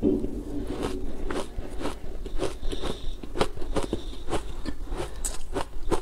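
Ice being bitten and chewed close to the microphone: loud, irregular crunches and crackles, about two or three a second.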